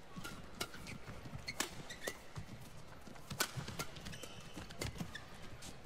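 Badminton rackets striking a shuttlecock in a fast doubles rally: sharp, short cracks about once a second, with brief squeaks of shoes on the court between them.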